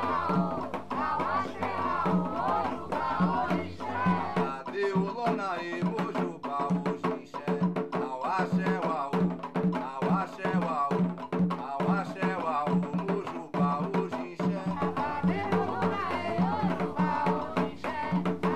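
Background music: hand drums beating a steady rhythm under a singing voice, in a song with Yoruba-derived words such as "axé" and "mojubá".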